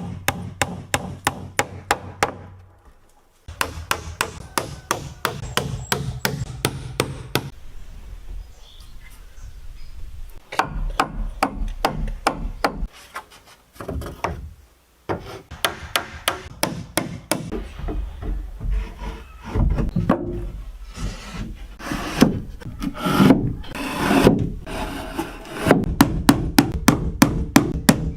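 Wood being worked with a hand tool: quick, rhythmic scraping strokes on timber, about four or five a second, in runs with short pauses between them.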